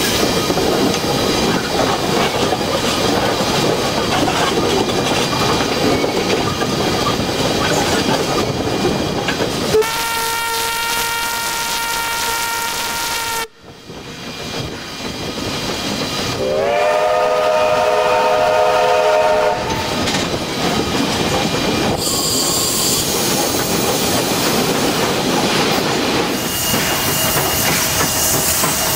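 Steam locomotive working a train, heard from the cab side: steady running noise with wheels clicking over the rail joints, then a single-note steam whistle held for about three and a half seconds. After a sudden cut, a chord steam whistle sounds for about three seconds, followed by steady steam hissing.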